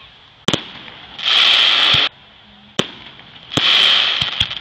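Aerial fireworks shells going off: a sharp bang about half a second in and another near three seconds, each followed by about a second of loud hissing rush, with a few smaller pops near the end.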